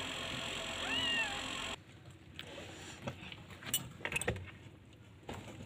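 A newborn kitten, eyes not yet open and separated from its mother, gives one short high mew about a second in over a steady background hiss. The hiss cuts off abruptly just before two seconds in, leaving faint scratchy clicks and rustles.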